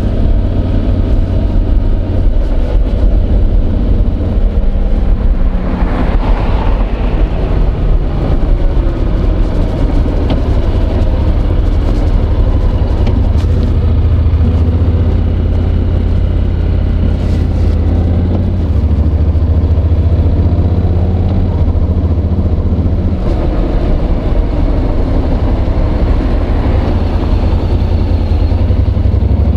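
Honda NC750X's 745 cc parallel-twin engine running on the move, its note shifting a few times, with the microphone scraping against slippery jacket-pocket fabric.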